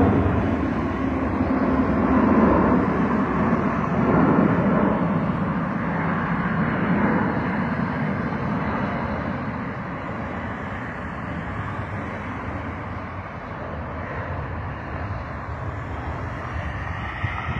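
Jet engine noise from a large military transport jet passing low and climbing away. It is loudest in the first few seconds, with a falling pitch, then slowly fades.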